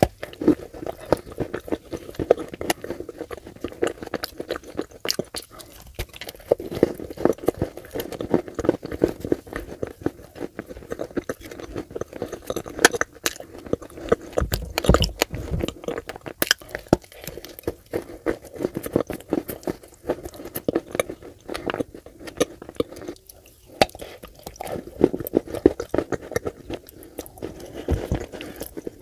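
Close-miked biting and chewing of dry Turkestan clay coated in wet clay paste: dense, irregular crunching clicks with a couple of short pauses.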